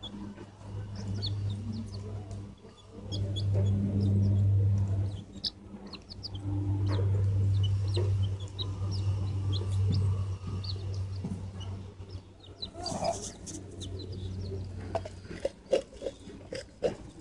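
Feral chickens clucking and pecking rice off a hand and the concrete, with many sharp little beak taps and a few brief high peeps. A low steady hum comes and goes underneath in stretches of a few seconds and is the loudest thing heard.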